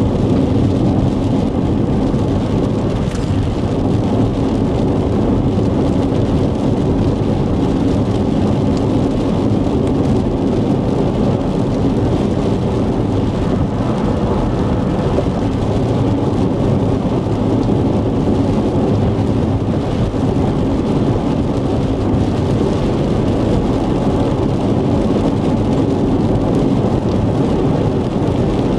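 Steady low rumble of road and wind noise inside a moving vehicle, picked up by a dash-cam microphone.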